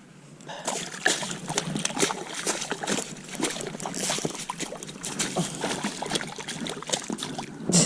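Water splashing and sloshing in an ice-fishing hole as a hooked northern pike thrashes at the surface. It is a busy run of irregular splashes that starts about half a second in, with one louder splash near the end.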